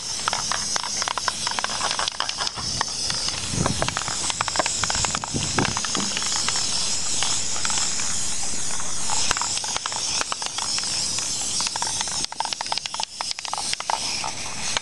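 Aerosol can of tractor and implement spray enamel hissing as paint is sprayed onto a tractor hood. It sprays steadily for most of the time, then in shorter, broken bursts in the last few seconds.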